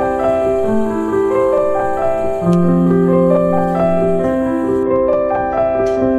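Background music: a keyboard melody of held, overlapping notes.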